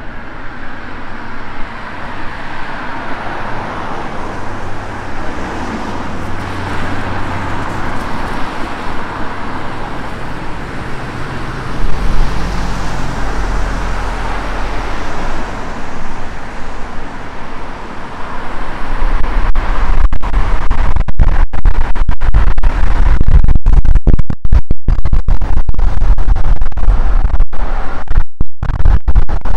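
Steady road traffic noise from passing cars and a van. About two-thirds of the way in, heavy wind buffeting on the microphone takes over, loud and low with brief dropouts.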